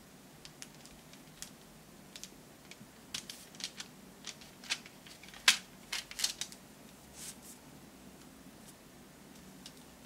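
Metal dessert fork clicking and scraping against parchment paper as it presses into soft cocoa-dusted chocolate: a scatter of short, sharp ticks, the loudest about halfway through.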